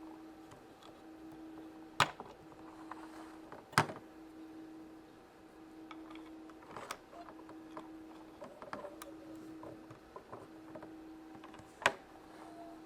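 Small plastic toy pieces of a Magiclip Cinderella carriage playset being handled and set in place: a few sharp clicks and taps, the loudest about two and four seconds in and another near the end, with softer ticks between, over a faint steady hum.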